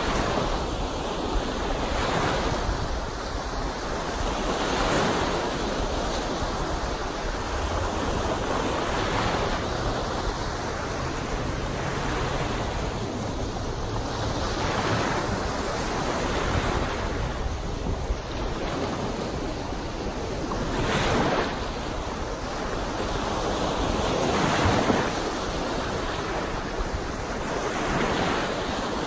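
Wind-driven waves of Lake Superior breaking and washing up a sandy beach, the surf swelling and rushing every few seconds. Wind buffets the microphone.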